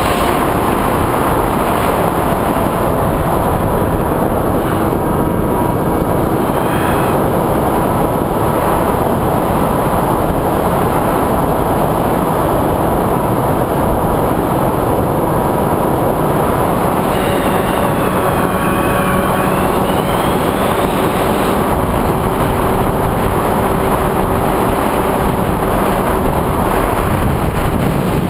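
FPV quadcopter's motors and propellers heard through its onboard camera, a dense rushing noise of propwash and wind with a faint motor whine. About two-thirds of the way through, a higher whine dips and climbs again as the throttle changes.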